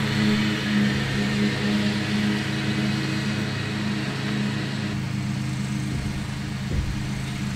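Lawn mower engine running at a steady drone.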